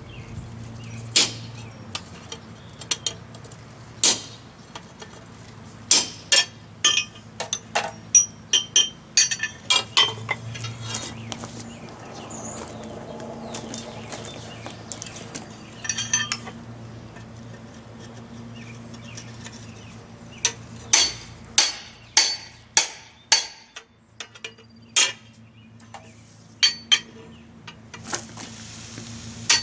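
Blacksmith's hammer striking steel on an anvil in irregular runs of blows with a bright metallic ring, over a steady low hum.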